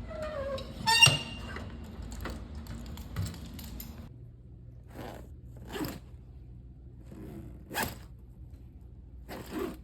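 A short falling squeak, then a sharp loud click about a second in, followed by scattered light clicks, taps and scrapes of handled objects.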